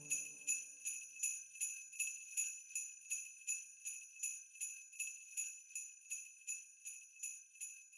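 Sleigh bells shaken in a steady rhythm, about two and a half shakes a second, as the last notes of the music fade out in the first second.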